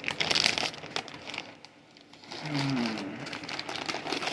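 Bag of tortilla chips being opened and handled, its plastic crinkling in bursts. The crinkling eases off midway and picks up again near the end.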